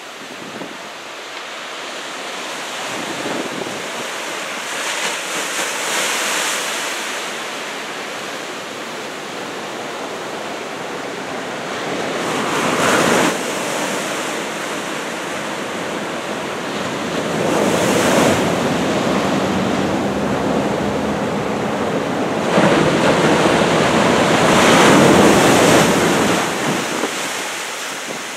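Heavy ocean surf from a typhoon swell, with waves breaking and washing in slow surges every several seconds. The loudest break comes near the end.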